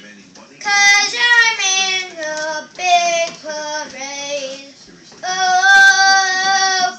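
A young child singing, in several sliding phrases, ending on one long held note near the end.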